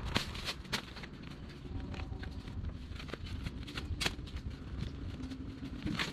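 Rustling of plastic bags and cloth luggage with scattered sharp clicks and knocks as bags and straps are handled on a loaded touring bicycle, over a steady low rumble.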